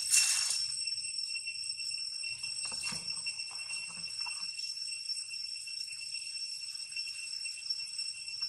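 Steady, high-pitched shrill drone of insects, several piercing tones held unchanged throughout.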